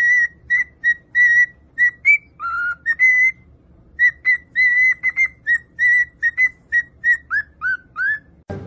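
Cockatiel whistling a quick string of short, clear notes, with a few sliding notes near the end.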